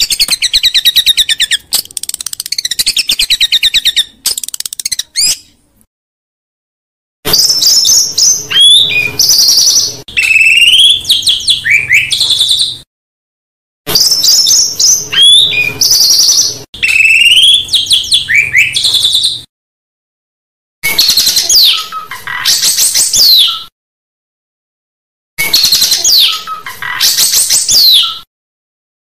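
Recorded songbird song used as a bird-training 'masteran' for white-rumped shamas: fast trills and high sweeping whistles in phrases of several seconds, each cut off abruptly by a second or so of silence. The same phrases come round again, as in a looped recording.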